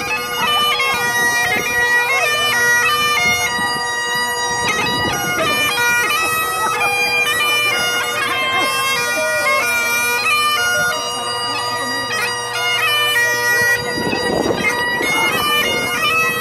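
Great Highland bagpipe playing a march: a steady, unbroken drone under the chanter's melody of held notes stepping from pitch to pitch.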